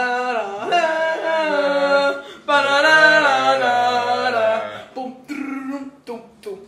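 Singing: two long held notes that waver in pitch, a low note joining under the second, then a few short sung notes.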